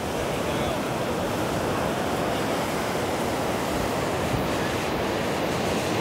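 Ocean surf breaking and washing up the beach, a steady rushing, with some wind on the microphone.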